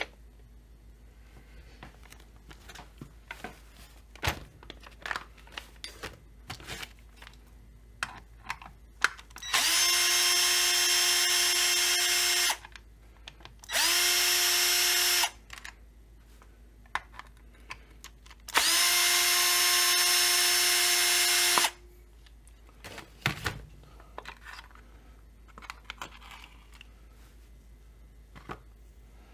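Cordless drill-driver running three times, for a few seconds each, with a steady whine as it backs out the chainsaw's top-cover screws. Sharp clicks and taps of parts being handled come between the runs.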